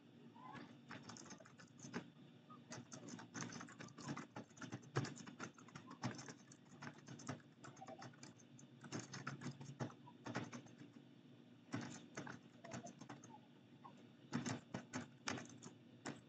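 Computer keyboard typing: runs of quick keystroke clicks broken by short pauses.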